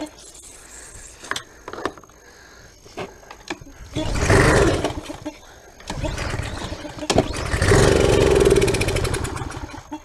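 Briggs & Stratton small engine on a pressure washer being pull-started: it catches for a short burst about four seconds in and again for a couple of seconds near the end, then dies each time. It won't keep running, which the owner puts down to old gasoline and possibly debris still in the fuel.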